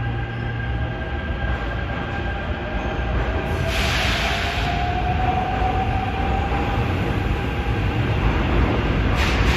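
Seoul Subway Line 5 electric train running through a tunnel onto a stabling siding: a low rumble of wheels on track with a motor whine that slowly rises in pitch as it picks up speed, and a burst of hiss about four seconds in.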